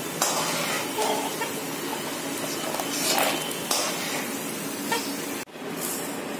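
Peanuts deep-frying in hot oil in a kadhai: a steady sizzling hiss, with a few scrapes of a metal spoon stirring and scooping them out. The sound cuts off for an instant about five and a half seconds in, then the sizzle goes on.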